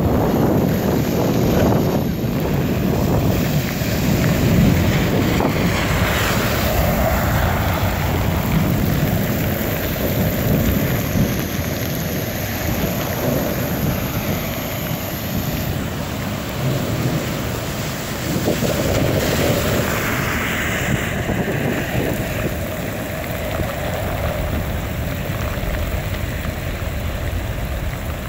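Heavy thunderstorm rain pouring down steadily, with wind buffeting the microphone and low rumbling thunder.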